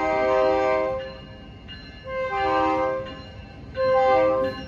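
Diesel locomotive's multi-note air horn sounding at a grade crossing: a blast that ends about a second in, then two shorter blasts of just under a second each.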